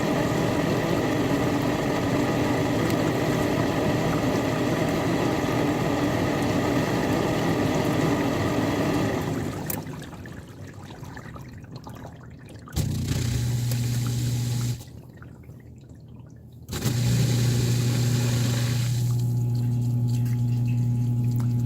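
Miele Diamante dishwasher circulating water, with water sloshing and a loud grinding noise that the owner puts down to a failing circulation pump or motor. The circulation stops about nine seconds in. A low steady hum of the drain pump then starts briefly, and comes on steadily a few seconds later as the machine drains.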